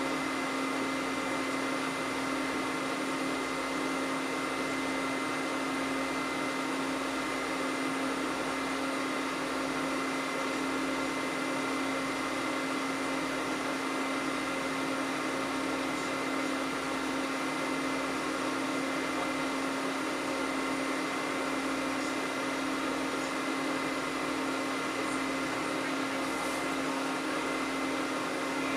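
Steady whirring fan noise with a constant low hum from running electronic equipment, which here is a freshly powered-up PBX and its terminal computer. A faint low throb pulses slightly more than once a second under the hum.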